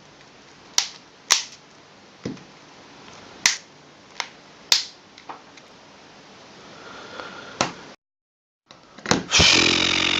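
Sharp, separate clicks and taps of small phone parts being handled and pressed into place during reassembly, about eight spread over several seconds. After a short break, a louder rasping, buzzing noise near the end.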